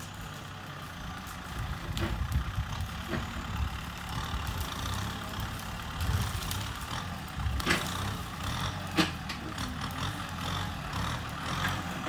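Kubota M6240 SUH tractor's four-cylinder turbo diesel running hard under load as its front blade pushes into dirt and stumps, its note rising and falling. Several sharp knocks and cracks come through, the loudest about nine seconds in.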